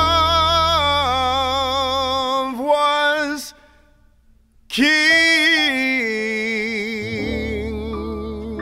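The end of a jazz ballad: a male baritone voice holds long sung notes with vibrato, breaks off for about a second, then sings one last long note. Sustained piano chords and a low double-bass note carry on beneath as the song winds down.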